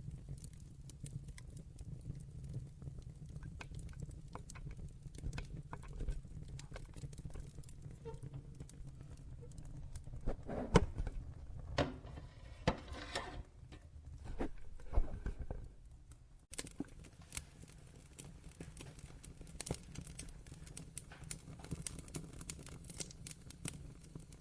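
Wood fire crackling in a fireplace: a steady low rumble with scattered sharp pops and snaps. A cluster of louder pops and crackles comes about ten to fifteen seconds in, and the sound drops out abruptly and restarts about sixteen seconds in.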